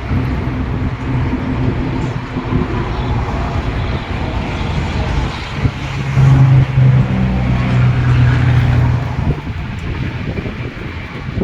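A motor vehicle going past on the road, its engine hum growing loudest about six to nine seconds in and then fading away.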